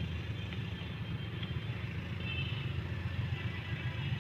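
Diesel locomotive engine idling out of sight, a steady low rumble.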